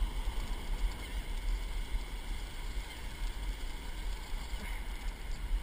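Ocean surf washing and breaking, with wind rumbling and buffeting on the microphone.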